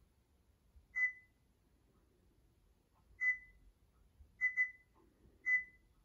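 Sharp ES-PU11B washing machine's touch panel beeping as its buttons are pressed: five short, high, single-pitch beeps, irregularly spaced, two of them in quick succession.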